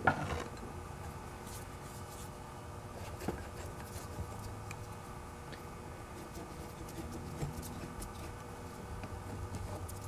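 Faint scrapes and a few light clicks from a driver turning a bolt on the cast end housing of an antique electric motor, over a faint steady background hum.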